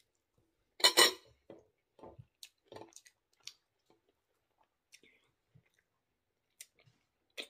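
A person eating rice by hand close to the microphone: a loud wet smack about a second in as the fingers leave the mouth, then scattered chewing and lip smacks.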